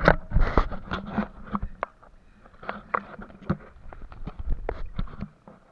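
Irregular knocks, clatter and splashes from a small wooden fishing boat working on a shallow river. They are loudest and thickest in the first second, then scattered, and stop just before the end.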